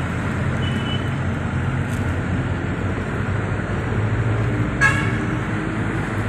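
Engine running and road noise heard from inside a vehicle moving in traffic, with a short, sharp horn toot nearly five seconds in and a faint brief beep near the start.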